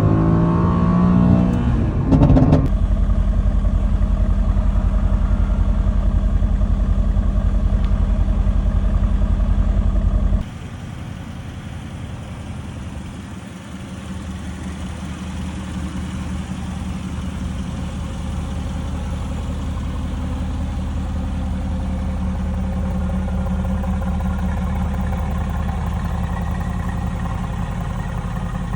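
2017 Mercedes-AMG GT's 4.0-litre twin-turbo V8 exhaust: revs settling back at the start and a sharp blip of the throttle about two seconds in, then a steady pulsing idle. About ten seconds in the sound drops abruptly to a quieter steady engine note that slowly grows louder toward the end.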